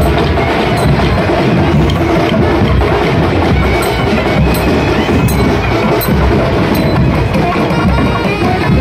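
Procession drum band: several double-headed barrel drums beaten with sticks, a loud, busy, continuous rhythm.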